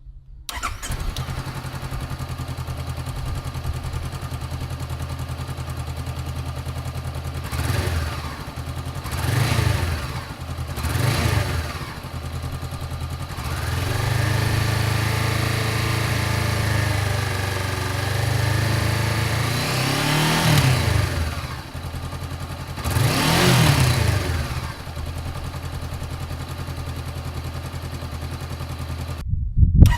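Honda CB500X 471 cc parallel-twin engine idling and blipped through its exhaust. Three short revs are followed by a higher rev held for several seconds, then two more revs, each falling back to a steady idle. The sound cuts off suddenly near the end.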